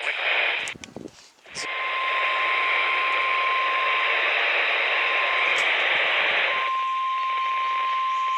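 NOAA Weather Radio 1050 Hz warning alarm tone: one steady beep that starts about a second and a half in, after a short dropout, and sounds over loud radio static. It signals that a new warning is about to be broadcast.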